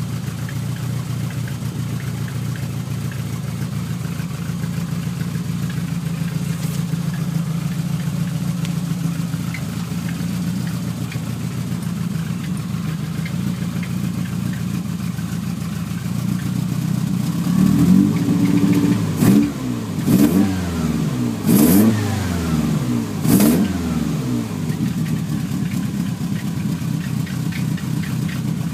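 Ford Zetec four-cylinder engine idling steadily, then revved in four quick blips, each rising and falling in pitch, about two-thirds of the way through, before settling back to idle.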